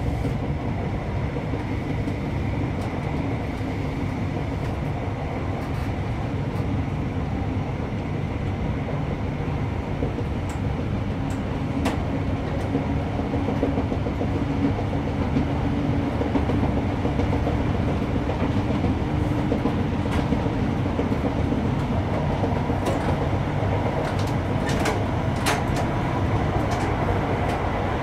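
Inside a diesel passenger train running at speed: a steady low rumble of wheels on the rails, with a faint hum through the middle and a few sharp clicks in the second half.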